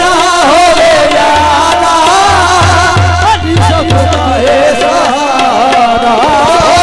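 Qawwali music: a wavering melody over a held note, with a steady pattern of low hand-drum strokes.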